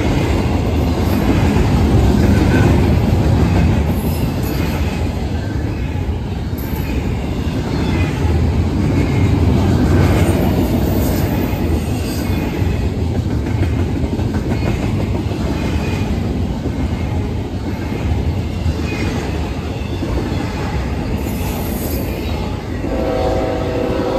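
BNSF double-stack intermodal freight trains passing close by on adjacent tracks: a steady rumble with the rhythmic clatter of the well cars' wheels over the rail joints. A train horn sounds near the end.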